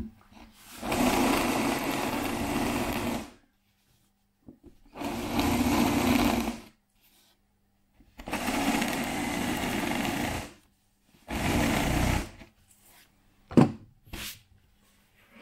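Cordless drill with a 10 mm spade bit boring into a laminated chipboard (LDSP) cabinet door, running in four separate bursts of one to two and a half seconds with silent pauses between. Two sharp clicks come near the end.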